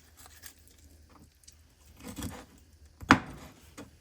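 A knife cutting the bone out of a raw chicken breast: faint cutting and scraping, with one sharp chop or knock a little after three seconds in.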